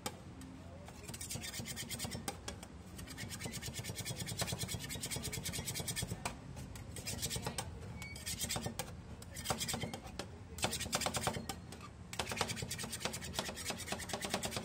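Metal spatula scraping and tapping in quick strokes on the frosted steel cold plate of a fried ice cream stand, in several runs with short pauses between them.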